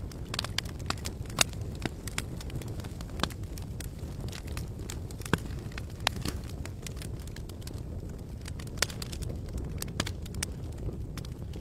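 Wood campfire crackling, with irregular sharp pops over a steady low rumble. A few pops stand out louder than the rest.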